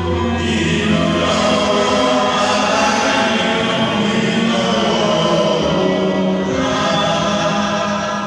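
A church congregation singing a gospel chorus together, many voices at a steady, loud level.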